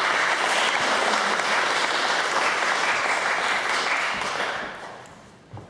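Audience applauding steadily, then dying away about a second before the end.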